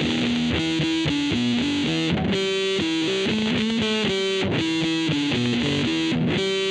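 Electric guitar, a Fender Jazzmaster HS converted into a 'Jazzblaster', played through heavy distortion: a riff of quick notes that changes pitch several times a second at a steady level.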